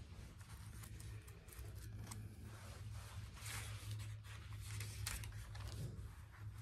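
Faint rustling of thin Bible pages being turned and handled, over a steady low hum.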